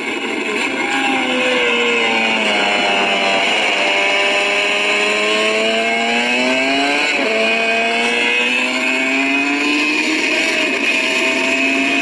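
MV Agusta racing motorcycle engine revving up and down through the gears, the pitch rising between sharp drops at gear changes about three and a half and seven seconds in. It is heard played back through a small screen speaker, with no deep bass.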